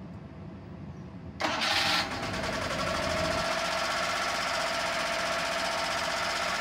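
Suzuki F6A 660cc three-cylinder 12-valve carbureted engine starting: a low rumble of cranking, then it catches about a second and a half in with a brief loud burst of revs and settles into a steady idle.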